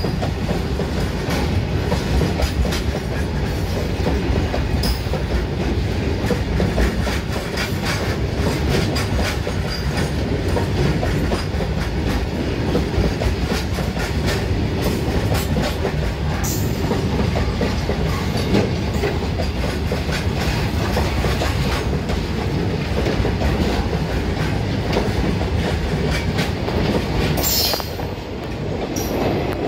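Freight train wagons rolling past close by: a steady loud rumble with the wheels clattering rhythmically over the rail joints. The noise dips briefly near the end.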